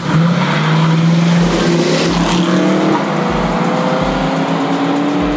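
Two classic Ford Mustangs accelerating hard away from a standing start. The engine pitch climbs and drops back at a gear change about three seconds in, then climbs again.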